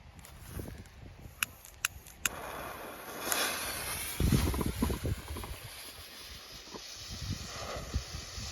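A lighter clicking three times, then the fuse of a consumer firework ball-shell rocket hissing as it burns, with low rumbling from wind on the microphone.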